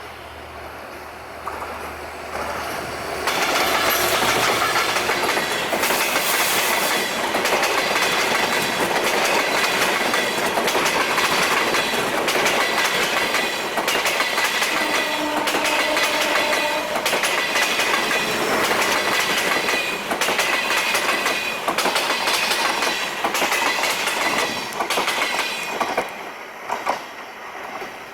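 Broad-gauge diesel-hauled express passenger train passing at speed in heavy rain. Its wheels clatter over the rail joints in a dense, rapid run for about twenty seconds, with some metallic ringing, before dropping away near the end.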